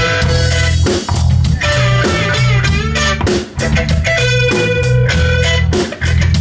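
Live rock band playing a song's instrumental intro: electric guitar chords over a bass guitar line and a drum kit beat, with no singing yet.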